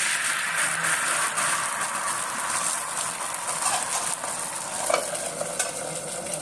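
Thin rice-flour batter for neer ghavne sizzling on a hot, oiled iron griddle just after it is poured, a dense hiss that slowly eases as the crepe sets and bubbles.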